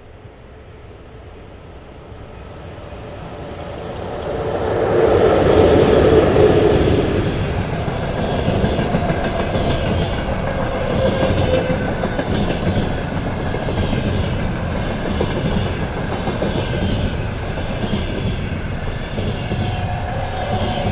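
Container freight train approaching and passing, loudest as its head end goes by about five seconds in, then a long string of container wagons rolling past with a steady clickety-clack of wheels over rail joints. Some wagons give an unusual steady tone, once about ten seconds in and again near the end.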